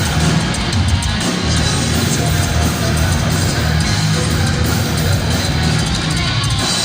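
Live heavy metal band playing with distorted electric guitars, bass and drums at steady high volume, as heard in a loud concert recording.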